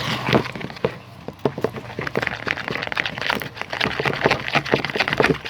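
Irregular small clicks and taps from handling the slime pot and glitter container as silver glitter is added to slime.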